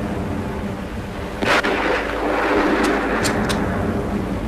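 Battle sound effects: an artillery blast about a third of the way in, followed by a rumble, then three sharp gunshots in quick succession near the end, all over a steady low drone.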